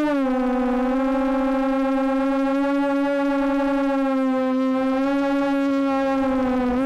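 FPV quadcopter's electric motors whining steadily, heard from the onboard camera: one held pitch that sags and rises slightly as the throttle shifts, with the craft hovering low or idling near the ground.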